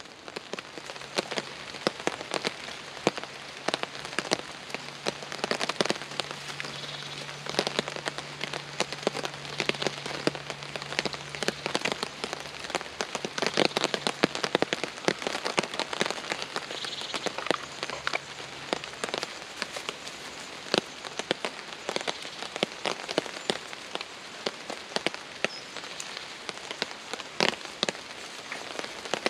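Heavy rain falling on a tarp shelter: a steady hiss with many big drops striking irregularly.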